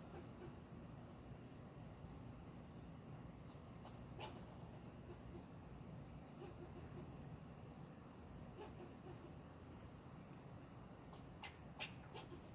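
Steady high-pitched drone of insects in the trees, with a few faint brief calls over it about four seconds in and again near the end.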